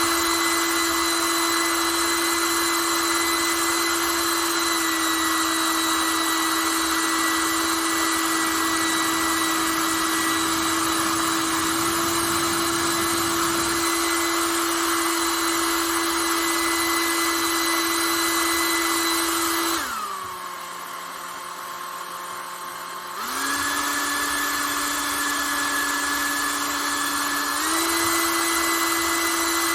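Panasonic Nanocare EH-NA0J hair dryer running, a steady rush of air over a motor whine. About two-thirds of the way through, the motor winds down to a lower, quieter airflow setting for about three seconds, then steps back up to a higher setting and, a few seconds later, up again.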